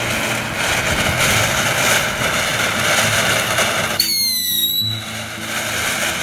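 Ground firework fountain spraying sparks with a steady loud hiss. About four seconds in, a short high whistle falls slightly in pitch for about a second.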